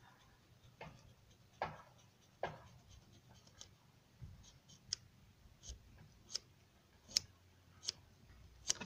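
Quiet clicks and scratches of hands and a tyre plug repair tool working a rubber plug strip into a car tyre's tread: about a dozen sharp ticks, a little under a second apart.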